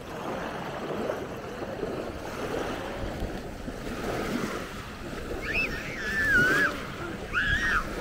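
Small sea waves breaking and washing up a sandy shore, with some wind. A little past halfway and again near the end come two short, high calls that slide up and down.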